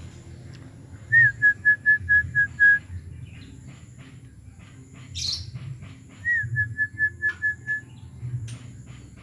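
A bird calls twice, each a clear whistled phrase: one note that rises and falls, then about six short, even notes at the same pitch. A short hissy rustle falls between the two phrases.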